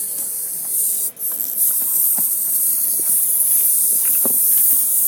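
Several small wind-up toys running at once, their clockwork gear trains giving a steady high buzzing hiss, with a few light clicks and taps as the toys move.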